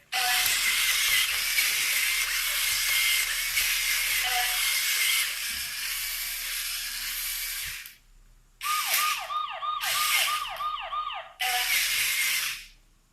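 Robocar Poli walking robot toy playing its electronic sound effects through its small speaker during its demo routine: a long hiss-like noise, then a quick run of about eight falling-pitch zaps like a siren, then a shorter burst of hiss.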